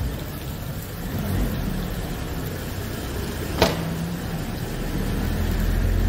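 A motor engine running steadily with a low rumble, getting louder near the end, with a single sharp knock about three and a half seconds in.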